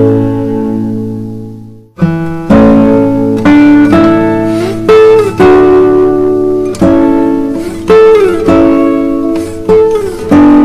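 Guitar music: plucked notes and chords that ring and die away, some sliding up or down in pitch. It fades out and starts again sharply about two seconds in.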